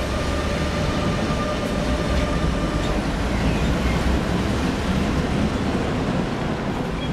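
Articulated tram running past close by on a curved street track, its wheels rumbling on the rails, with a steady whine that stops about three seconds in.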